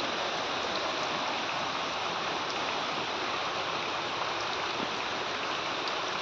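Steady rain falling on waterlogged ground and puddles: an even hiss that holds level throughout.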